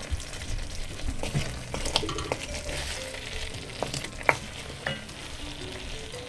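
Lamb and spices sizzling in a cooking pot, with a few sharp taps and clicks scattered through.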